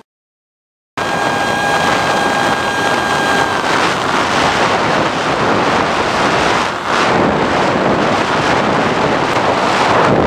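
Easy Star RC plane in flight, heard through its onboard camera's microphone. The sound starts about a second in: loud wind noise on the microphone, with the steady whine of the electric pusher motor over the first few seconds, which then drops into the wind.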